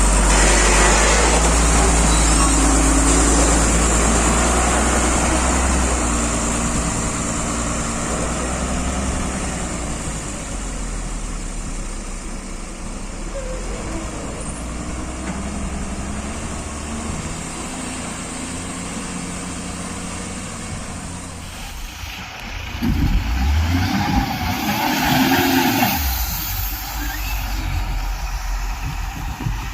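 Heavy diesel engines running at a backhoe-and-tipper loading job, slowly fading. Near the end they get louder and uneven for a few seconds, with a high hiss.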